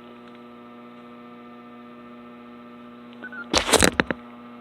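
Two-way radio with a steady hum, then a short beep that steps down in pitch. A loud burst of static with clicks follows for under a second, about three and a half seconds in.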